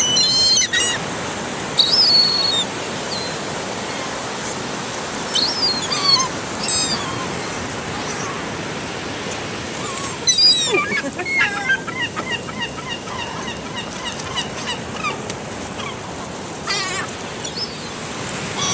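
Gulls calling: scattered squawks and yelps, with a long run of quick repeated notes in the middle, over a steady hiss of surf.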